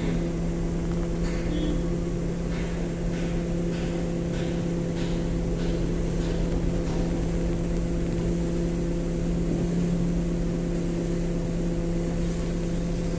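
Heavy vehicle's diesel engine, the crane's or the truck's, running steadily at a constant low hum. Faint light clicks come about twice a second for a few seconds in the first half.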